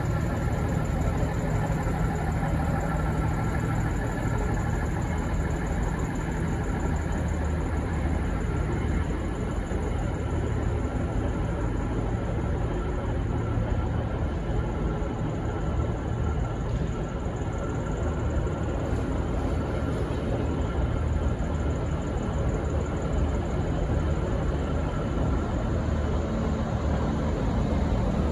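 Diesel locomotive running with a steady low rumble, with a few faint steady tones above it.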